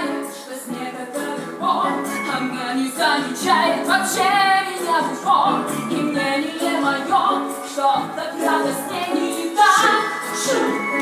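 Female voices singing a musical-theatre song, one held note wavering with vibrato about four seconds in.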